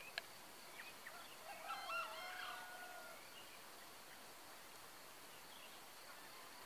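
A junglefowl crowing once: a short call of about a second and a half that ends on one held pitch. It sits over a steady background hiss, with a brief click just before it.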